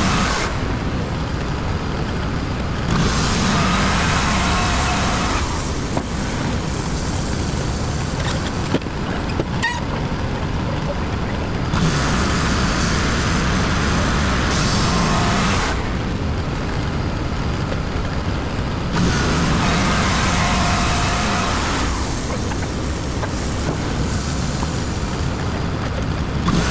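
Gas engine of a WoodMizer LT35 portable bandsaw sawmill running steadily under load, growing louder in stretches of a few seconds, several seconds apart.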